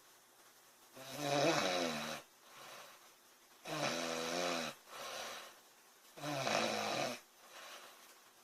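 A sleeping woman snoring: three loud, rasping snores, each about a second long and about two and a half seconds apart, with a quieter, shorter sound after each.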